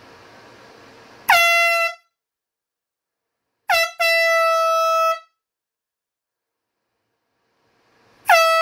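Handheld compressed-gas can air horn (Ozark Trail) blaring in separate blasts, each opening with a quick downward swoop in pitch before holding one steady, piercing tone: one short blast about a second in, a brief blast run straight into a longer one of about a second in the middle, and another blast near the end. A faint steady hiss of room noise is heard before the first blast.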